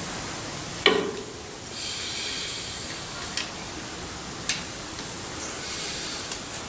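Steel pry bar clanking and scraping against the metal of a Massey Ferguson 35's PTO shaft housing as it is levered at a stuck PTO seal and bearing. There is one loud ringing clank about a second in, then three lighter metal clicks with stretches of scraping.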